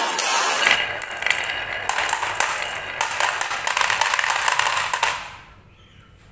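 Glass marbles rolling down a wooden track and dropping into the plastic bed of a toy dump truck, clicking and clattering against each other in a dense run. The clatter dies away about five seconds in.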